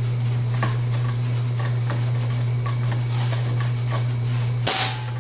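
A single shot from a Benjamin Marauder .22 precharged pneumatic air rifle, a short sharp report near the end, over a steady low hum and a few faint knocks.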